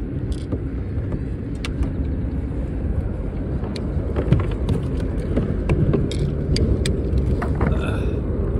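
Steady low rumble, with scattered light clicks and knocks of gear being handled on a kayak while a caught fish is lifted up. A brief squeak comes near the end.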